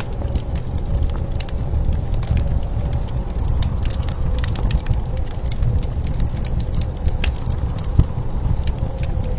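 Wood fire crackling with irregular sharp pops, one a little louder about eight seconds in, over a steady low rumble of blizzard wind.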